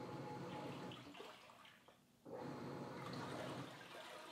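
Black+Decker portable washing machine agitating in its wash cycle: the tub turns one way and then the other, sloshing water and clothes with a motor hum. Each stroke lasts about a second and a half with a short pause between; one ends about a second in and the next starts a little after two seconds.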